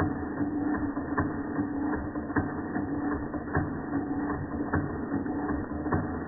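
Georges Carette model 2317 vertical toy steam engine running on live steam: a steady mechanical clatter of small ticks, with a sharper click about once a second, over a steady low hum.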